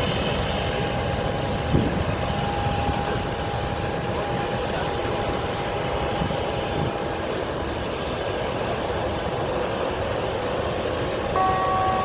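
CFM56 jet engines of a Boeing 737-800 running as the airliner rolls along the runway: a steady rumble with a held whining tone, joined near the end by a second, higher tone.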